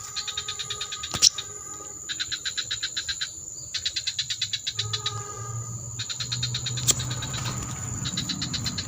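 Insects chirring: runs of rapid even pulses, about six a second, each run lasting one to two seconds with short breaks, over a steady high-pitched whine. Two sharp clicks stand out, about a second in and near the end.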